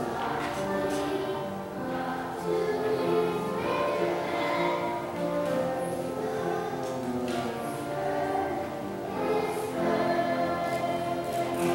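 Children's choir singing, with notes held and changing in a steady melody.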